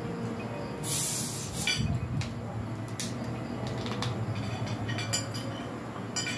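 Spoons and forks clinking against plates and a glass during a meal, in a string of short sharp clicks, with a brief hiss about a second in. Near the end, cola is poured from a plastic bottle into a glass.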